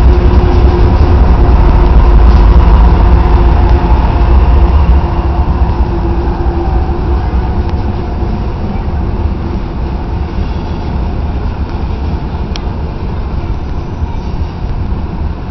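BNSF diesel freight locomotives passing close below, a loud engine drone with steady tones over a deep rumble, which drops off after about five seconds into the steady rumble of covered hoppers and freight cars rolling by on the rails. One short sharp tick near the end.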